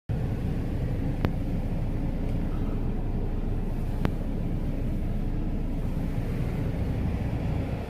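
Steady low rumbling noise, with two sharp clicks, about a second in and about four seconds in.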